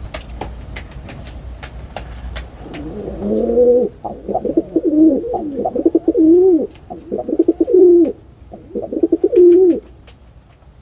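A pigeon cooing: a run of low, wavering coos starting about three seconds in, broken into several phrases by short pauses. Faint clicks come before the coos.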